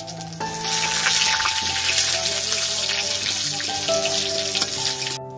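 Hot oil sizzling in a kadai as pieces of fish with dried red chillies and bay leaves fry and are stirred with a spatula. The sizzling starts about half a second in and cuts off suddenly near the end. Background music with steady held notes plays underneath.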